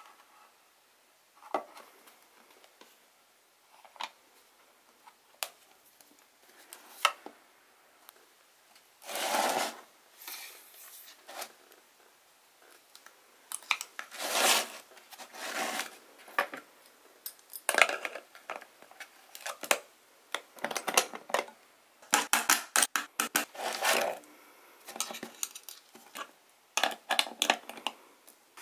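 Steel kalimba tines and metal hardware clicking and scraping against a 3D-printed plastic body and wooden bridges as the tines are fitted under the holding bar. Scattered clicks with a few longer scrapes, busiest in the second half.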